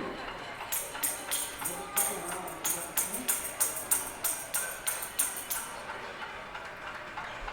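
Pots and pans being banged in a cacerolazo protest: a rapid, even clanging of metal strikes, about three a second, with a bright ringing one that starts about a second in and stops near the six-second mark, over scattered duller knocks.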